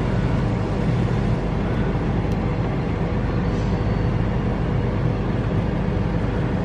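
Steady low rumble of a car's engine idling, heard from inside the cabin.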